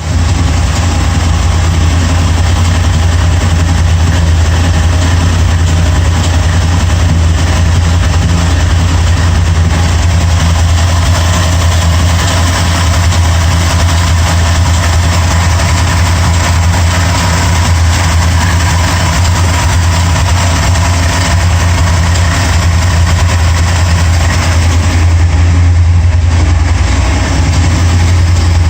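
Corvette engine idling steadily, with a random ticking that the owner is asking about.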